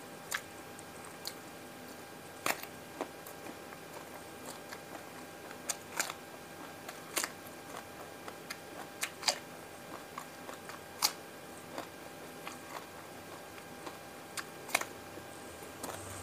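Close-miked eating of a raw salad vegetable: scattered crisp bites and crunches with wet mouth clicks while chewing, at uneven intervals.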